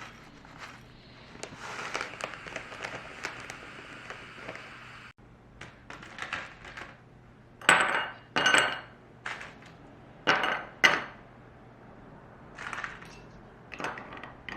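Dishes and cutlery clinking and clattering in a series of sharp knocks, several of them loud, with short ringing after each.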